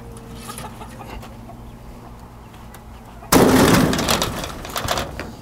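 A spare garage door panel toppling over and crashing down flat, pushed too hard: one sudden loud crash about three seconds in, rattling and dying away over about a second and a half.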